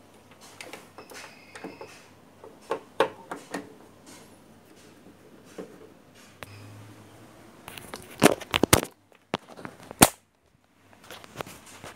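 Screwdriver clicks and plastic knocks as the rear plastic cover of a CRT television is screwed back on: scattered clicks, a cluster of loud sharp knocks about eight seconds in, and one loud knock near ten seconds.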